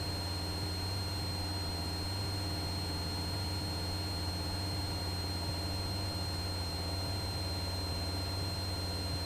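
Cessna 172's engine and propeller running steadily, heard from inside the cockpit as a constant low drone, with a thin steady high-pitched whine over it.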